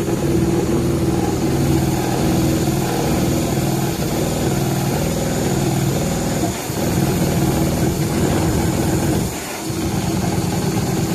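CNC perforation machine running, its punching needles stroking rapidly in a fast, steady mechanical chatter that pauses briefly twice.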